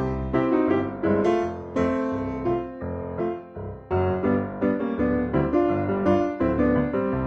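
Background piano music, notes struck in a quick, bouncy rhythm over a steady bass line.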